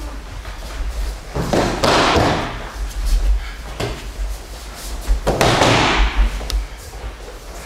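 Aikido partners landing on a padded mat in breakfalls after throws: two heavy thuds, about two seconds in and again near six seconds.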